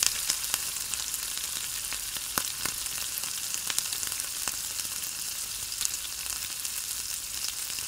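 Chopped fresh coriander and cumin seeds sizzling in hot oil in a frying pan: a steady hiss with scattered crackling pops, the tempering (tadka) for dal being fried.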